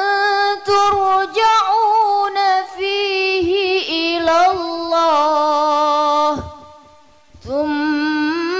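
Melodic Qur'an recitation (tajwid): a single voice draws out long, ornamented notes on the verse's syllables. It breaks off for a breath about six and a half seconds in, then takes up the next phrase.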